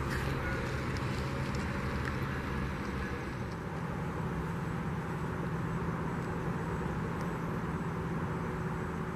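A large engine running steadily under a wash of background noise, its low hum shifting up slightly about three and a half seconds in.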